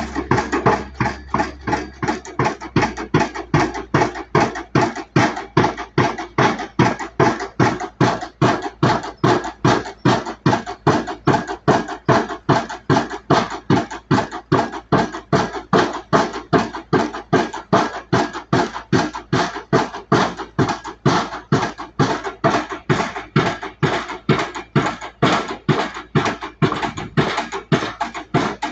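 Junttan PM 23 pile driving rig's impact hammer striking the pile in a steady rhythm, about two to three blows a second, starting abruptly.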